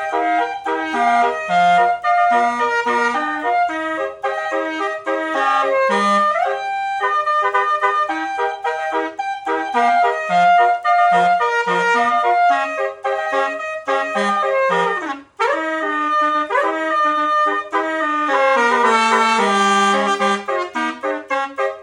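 Telolet basuri bus horn playing a quick melody of trumpet-like notes, with a brief break about fifteen seconds in.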